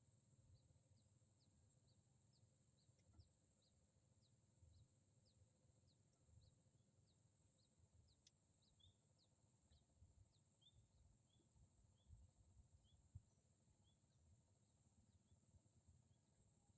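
Near silence: faint outdoor ambience, with a steady high-pitched insect drone and a series of short, high chirps about twice a second.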